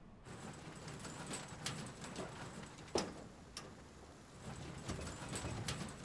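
Faint background ambience, a steady hiss with irregular sharp clicks and knocks scattered through it.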